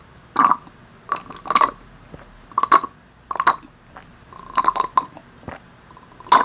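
Close-up sucking slurps and swallowing gulps of a yogurt drink sipped through a plastic straw, close to a clip-on lavalier microphone. There are about eight short sips, roughly one a second, some in quick pairs.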